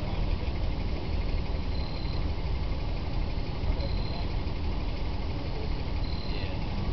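Nissan 300ZX Z32's V6 running with a steady low rumble, plus a faint short high chirp repeating about every two seconds. It is the odd noise that the owner links to the transmission.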